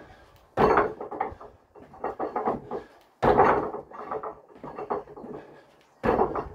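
Box jumps onto a stack of concrete paving slabs: three sudden heavy landings, about two and a half to three seconds apart, each followed by smaller knocks and steps as he gets back down.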